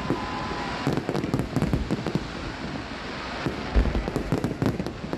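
Aerial fireworks bursting in rapid volleys, a dense run of bangs and crackle over a constant rumble, with the loudest bang a little under four seconds in.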